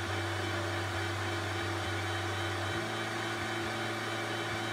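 Metal lathe running steadily, its chuck spinning while the tool turns an aluminum workpiece down to diameter. The low hum shifts slightly about three seconds in.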